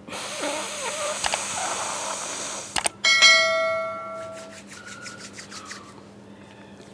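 Ujjayi pranayama breathing, a long noisy breath through a narrowed throat, for about three seconds. Then two quick clicks and a bell-like chime that rings out and fades over about a second and a half.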